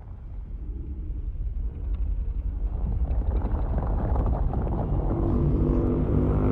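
Homemade imitation of Godzilla's atomic breath: a low rumble swelling steadily louder, with a droning hum coming in over it about five seconds in.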